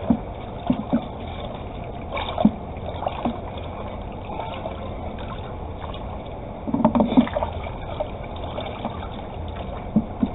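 Homemade liquid laundry soap being stirred in its container: liquid sloshing, with scattered knocks of the stirrer against the container and a louder flurry of stirring about seven seconds in.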